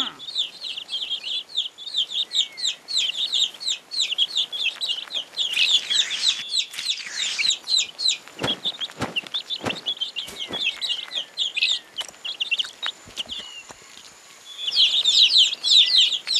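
Cartoon baby birds cheeping: rapid, high-pitched chirps without a break, dying down for a couple of seconds about three-quarters through and starting up louder again near the end, with a few soft knocks midway.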